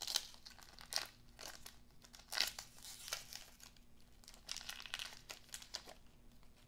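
Paper wrapper of a 1992-93 Topps basketball card pack crinkling and tearing as it is peeled open by hand, in a string of short, sharp crackles.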